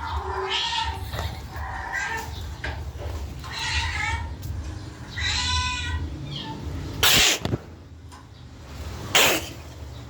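Recorded cat meows played through a phone speaker: about four meows in the first six seconds, then two short, loud noisy bursts a couple of seconds apart.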